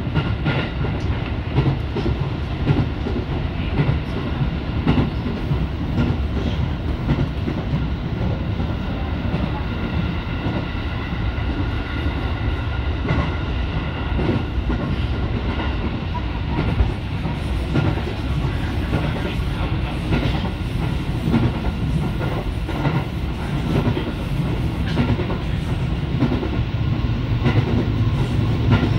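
JR 205 series electric train running on the line, heard from inside the lead cab car: steady wheel-on-rail running noise with rail-joint clicks now and then.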